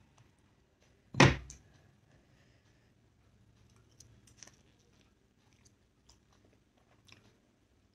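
A person eating a steamed momo dumpling: one loud, short thump about a second in, then faint chewing with small mouth clicks from about four seconds in.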